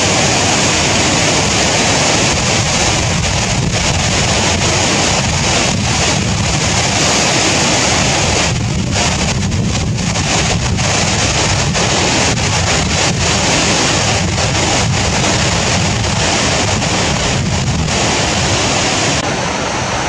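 Overflow from a full reservoir pouring down a concrete dam spillway and churning into white water: a loud, steady rush.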